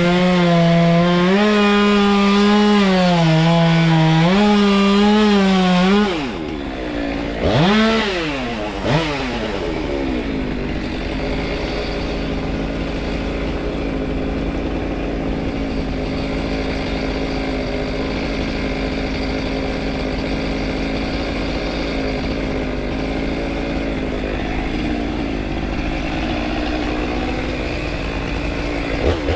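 Stihl MS193T top-handle chainsaw running at full throttle, its pitch wavering under load as it cuts. About six seconds in it drops off, is blipped twice, then idles steadily, and it revs up again at the very end.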